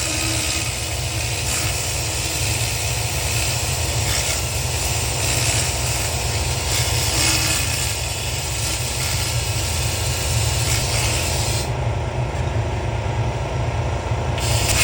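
200 W pulsed fiber laser ablating corrosion from a brass bell: a steady crackling hiss that stops for a few seconds near the end and then starts again, over a constant low machine hum.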